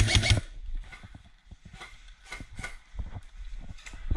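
Footsteps and gear knocking as a player moves across dirt and onto the wooden floor of a bunker. The sound is a string of irregular sharp knocks and clicks after a short loud burst at the very start.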